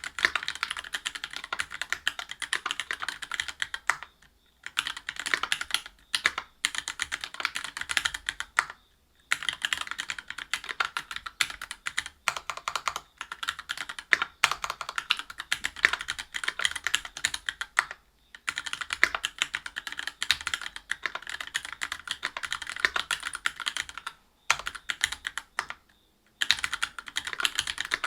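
Continuous typing on a Whale 75 mechanical keyboard fitted with stock Gateron Milky Yellow Pro linear switches (50 g), a brass plate and GMK keycaps: a dense patter of key presses with a few short pauses.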